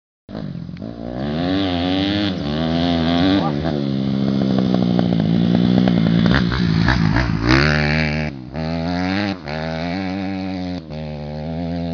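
Honda CRF250R motocross bike's single-cylinder four-stroke engine running and being revved, its pitch rising and falling. It climbs to its highest rev about seven and a half seconds in, then drops out briefly a few times.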